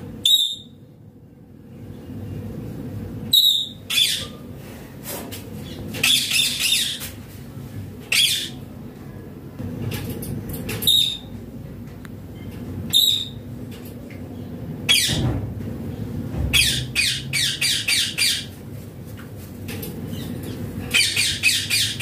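Indian ringneck parakeet giving short, shrill squawks, some single and some in quick runs of several calls.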